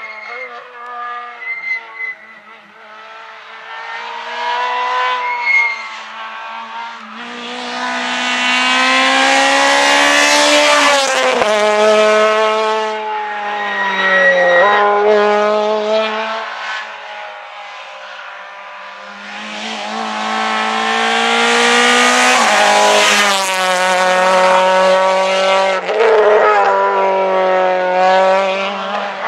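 Rally cars at full throttle on a tarmac stage, one after another, their engines climbing in pitch through each gear with sharp drops at the gear changes. Two loud passes, about a quarter of the way in and again about two-thirds of the way in, after a fainter engine at the start.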